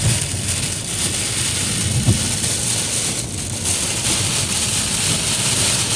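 Heavy rain beating on a moving car and steady tyre and road noise, heard from inside the cabin, with two dull low thumps about two seconds apart.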